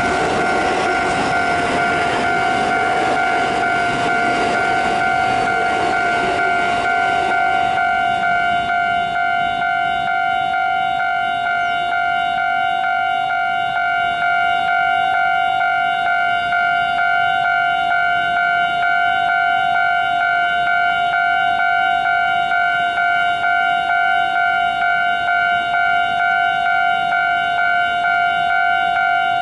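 Railway level-crossing warning bell ringing continuously, a steady repeating electronic ding. Over the first several seconds the wheel and running noise of a passing local electric multiple-unit train fades out beneath it.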